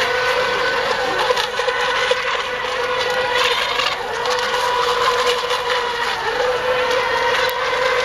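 Several electric RC racing boats running at speed, their motors and propellers making a steady whine that wavers slightly over a hiss.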